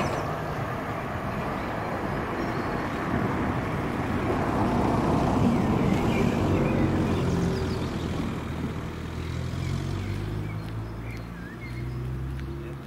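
Road vehicle noise: a steady rumble swelling to its loudest about five seconds in, then a car engine's low running hum through the second half that drops away at the very end.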